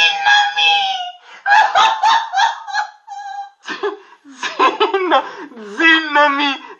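Uncontrollable, high-pitched laughter that stops and starts in repeated fits.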